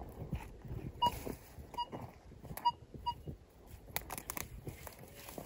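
Metal detector giving four short, faint beeps as it is swept over the ground, over a low rustling of brush.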